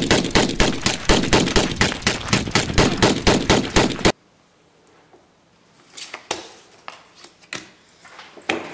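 Rapid machine-gun fire, about five shots a second, which cuts off abruptly about four seconds in. Afterwards a few light scattered taps, cards being laid down on a table.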